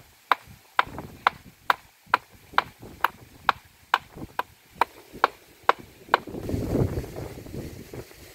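Hand hammer striking the top of a concrete trellis post, about fourteen sharp, evenly paced blows roughly two a second, stopping about six seconds in. Wind rushing on the microphone follows.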